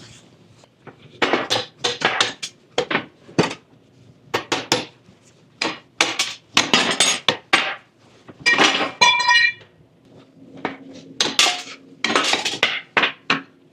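Irregular hammer blows on steel, with metallic clanking and clinking as the heated U-bolts and washers are knocked off the rear leaf springs; one blow a little past the middle rings on.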